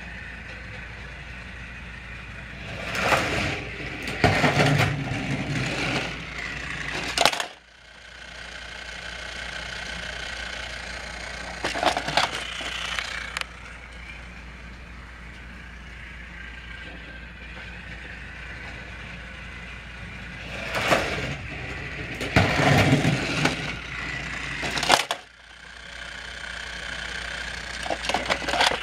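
Battery-powered Trackmaster toy train running on plastic track: a steady motor whine with louder plastic rattling and clattering that comes and goes three times. Two of the rattling passages end in a sharp click.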